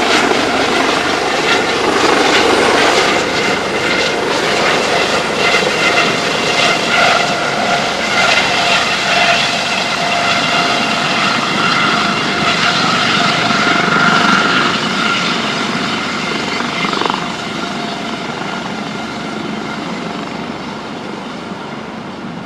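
Coast Guard helicopter's turbine engine and rotor running close by, a loud steady rush with a high whine, growing gradually quieter over the last several seconds.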